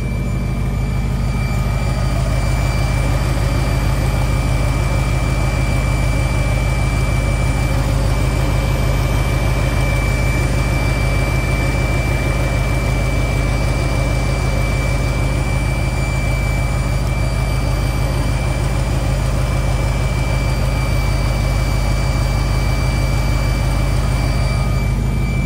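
V8 engine fed by an Edelbrock 650 four-barrel carburetor, running steadily at a constant speed on the freshly worked-on carburetor. A thin, steady high-pitched tone runs alongside the engine note.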